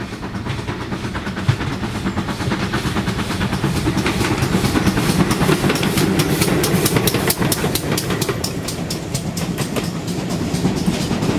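Steam-hauled train passing at speed, with a fast, even clatter over heavy rumble. It is loudest about halfway through and eases towards the end.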